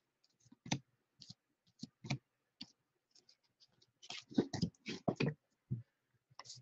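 Baseball trading cards being handled: scattered soft clicks and taps of card stock as cards are flipped and set down, with a quicker run of them about four seconds in.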